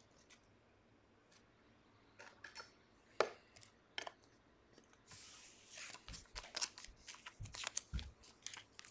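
Panini Chronicles soccer trading cards and pack wrapper being handled: a few sharp clicks, then about five seconds in a rustling tear of the wrapper followed by a quick run of card flicks and soft taps on the table.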